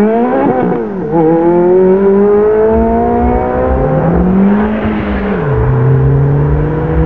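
Ferrari F430's V8 accelerating away under load. The revs climb, dip about a second in, climb steadily again and fall back about five and a half seconds in, then run steady.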